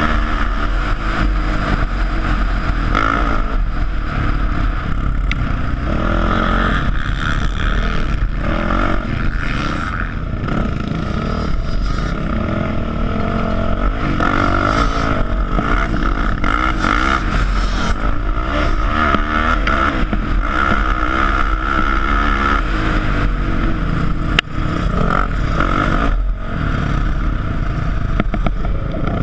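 Sport quad (ATV) engine running under throttle while being ridden over sand, its pitch rising and falling with the throttle, heard close up from the rider's helmet; the engine note drops off briefly near the end.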